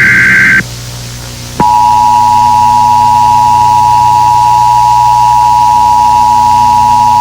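Emergency Alert System signals. The last burst of the buzzy digital header ends about half a second in. After a short pause, the steady two-tone EAS attention signal starts about a second and a half in and holds unbroken, over a low hum.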